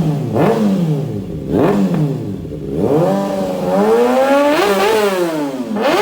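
2022 Kawasaki ZX-6R's inline-four engine revved through a slip-on exhaust: three quick throttle blips, then a longer rev that climbs, dips briefly and climbs again to a peak near the end.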